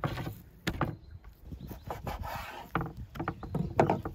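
Raw beef tenderloin being trimmed and handled on a wooden cutting board: irregular knocks of the knife and meat against the board, and rubbing of hands on the meat, with a short rasping stretch a little past the middle.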